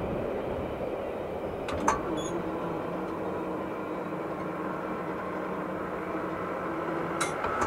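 Steady rolling noise of a fast CSX double-stack intermodal freight train on the rails. A sharp click comes about two seconds in and another near the end.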